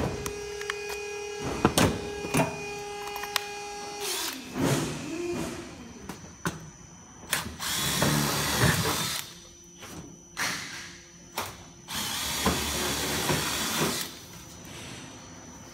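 Cordless driver running roofing screws through steel ridge capping into the batten below: two longer runs of a couple of seconds each, about 8 and 12 seconds in, with shorter bursts between them and a few clicks and knocks before.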